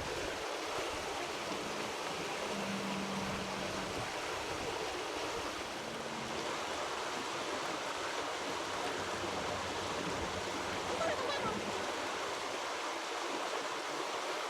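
Steady rushing of flowing creek water, an even hiss that does not change.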